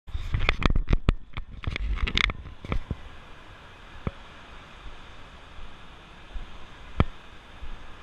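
A rapid run of knocks and clatter from the handheld camera being handled for about the first three seconds. After that, a steady hiss of surf and wind, with two single sharp knocks about four and seven seconds in.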